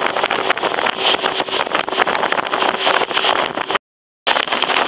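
Motorboat running under way, its engine hum buried in heavy wind rushing over the microphone. The sound cuts out for about half a second near four seconds in, then resumes the same.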